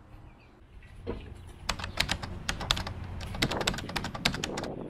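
A quick, irregular run of sharp clicks and taps, starting about a second and a half in and stopping shortly before the end.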